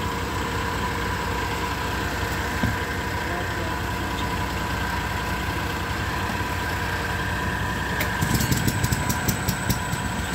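An engine idling steadily with a constant hum. Near the end, an irregular crackling rustle joins in.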